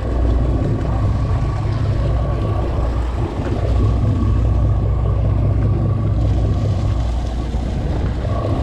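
Boat engine running with a steady low rumble and a thin steady whine above it.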